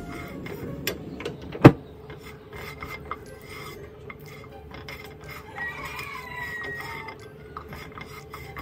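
A metal spoon scraping and stirring glazed walnut pieces around a nonstick frying pan, a rasping rub with a few small clicks. One sharp knock about a second and a half in.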